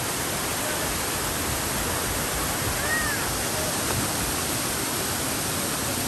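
Steady rushing of a waterfall pouring over a rock ledge into a pool below.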